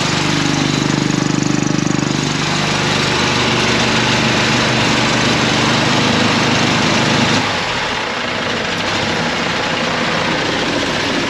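Air compressor running steadily under a loud hiss of compressed air blowing through the duct. About seven seconds in the compressor stops and the air hiss carries on.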